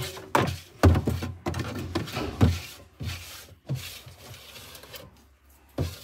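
Refrigerator glass shelf and plastic crisper drawer being handled, giving a run of clunks and rattles about every half second, a quieter stretch, then one more clunk near the end.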